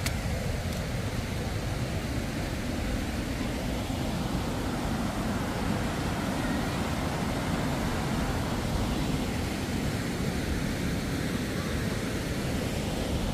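The River Tees in spate, rushing over rocky falls and rapids: a steady, even rush of water with no breaks.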